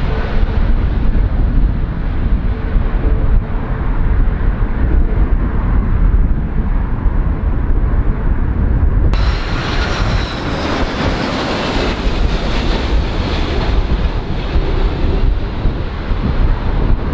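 Strong gusty wind buffeting the microphone in a loud low rumble, mixed with the noise of jet airliners landing. About nine seconds in the sound cuts abruptly to a nearer jet on final approach: turbofan whine and rushing noise over the wind.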